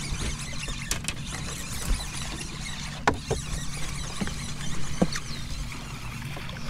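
Sounds of a hooked largemouth bass being fought to the boat: a few sharp clicks and knocks from the tackle and boat over a steady low hum and a high hiss.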